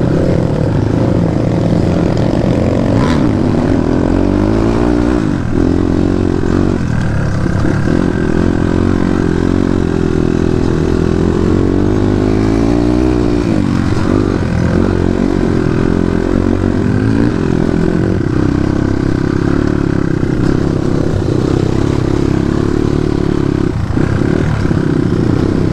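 Dirt bike engine running under a rider, its pitch rising and falling with the throttle.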